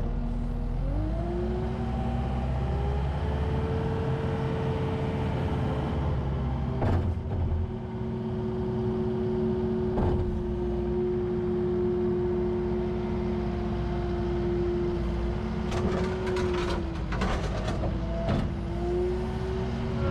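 Takeuchi TL8R-2 compact track loader's 74.3 hp diesel engine revving up from idle about a second in and then running steadily at high speed, its pitch dipping and recovering near the end. A few sharp knocks, with a cluster of clanks near the end.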